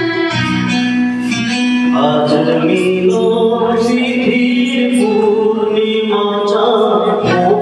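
A man singing a Bengali song into a microphone over guitar accompaniment. His voice comes in about two seconds in, after the instrumental lead-in.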